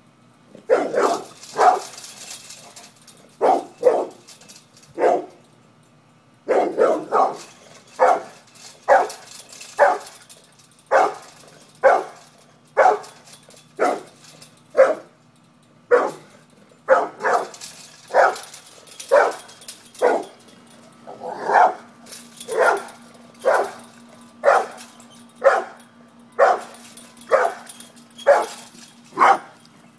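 Brindle pit bull barking over and over at a cat, about one bark a second, with a short pause about six seconds in.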